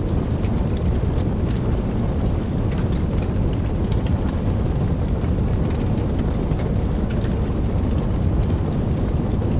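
Wood fire burning, with a steady low rumble of flame and frequent small, sharp crackles and pops of burning wood scattered throughout.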